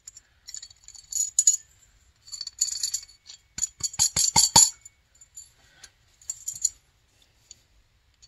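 Small metal carburetor parts clinking and rattling as a part is dropped and worked down into the snowmobile carburetor's body: scattered light clicks and jingles, with a quick run of sharp clicks about four seconds in.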